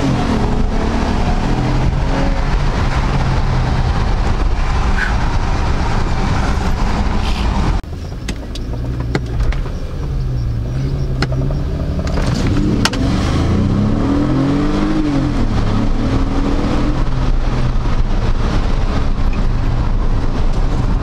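Audi A8L's 6.0-litre W12 engine accelerating, heard from inside the cabin, its pitch rising and falling through the gears. The sound drops suddenly about eight seconds in, then builds and climbs in pitch again.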